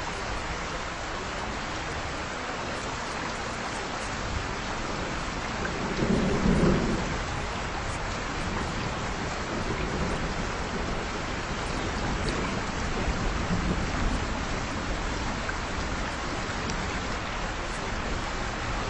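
Steady rain falling, with a low roll of thunder about six seconds in and fainter rumbles later on.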